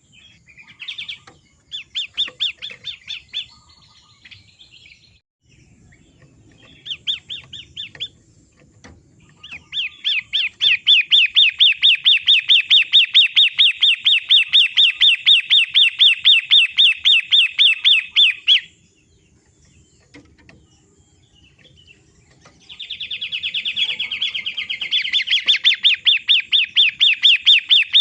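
Long-tailed shrike (pentet) singing in bouts of rapid, evenly repeated chirping notes, about five a second. There are short bouts in the first eight seconds, a long run from about ten to eighteen seconds, and another long run starting about twenty-three seconds in.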